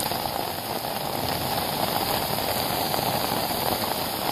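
Extremely heavy rain pouring down steadily, a dense even hiss of downpour.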